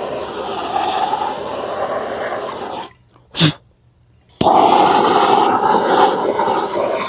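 Propane torch running steadily while scorching carved wood to darken it. It cuts out about three seconds in, a single short, loud burst comes in the quiet gap, and the torch sound returns about a second later, starting with a sharp click.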